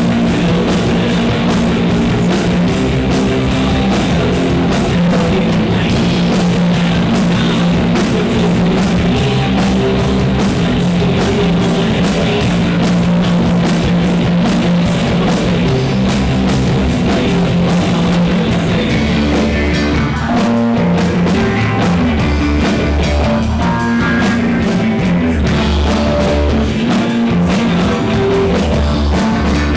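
Live rock band playing a song: electric guitar, electric bass and drum kit, loud and continuous, with the drums keeping a steady beat.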